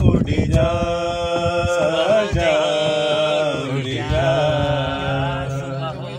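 A man singing a slow Urdu ghazal-style melody without words, holding long, wavering notes that glide from pitch to pitch, easing off near the end.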